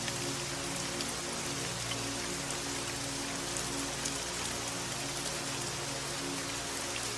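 Steady rain, an even hiss of many drops with small individual ticks, over soft music of held low notes that shift slowly.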